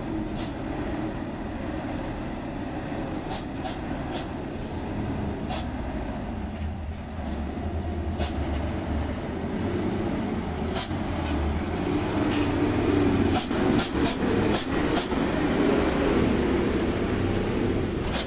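Diesel engines of heavy Hino dump trucks running as they move slowly down a steep dirt track. The engine noise grows louder past the middle as the first truck draws close. Short, sharp clicks sound every second or so, most thickly a little after the middle.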